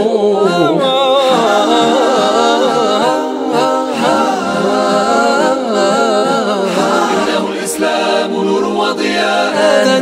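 An a cappella Arabic nasheed in praise of the Prophet, sung by voices alone with no instruments, in long, ornamented melodic lines.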